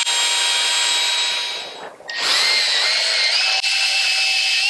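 Cordless drill motor whirring steadily at speed while drilling a small pilot hole in an engine case. About two seconds in it winds down and stops briefly, then starts again and runs on, its pitch shifting slightly.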